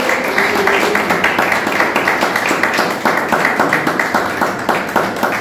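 Audience applause, many hands clapping, as a song ends; the last held note of the music fades out about a second in.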